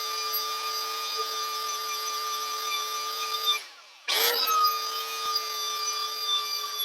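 Electric power tool running steadily on wood, with a steady whine. The trigger is let go about three and a half seconds in, and the tool restarts half a second later with a short rising spin-up.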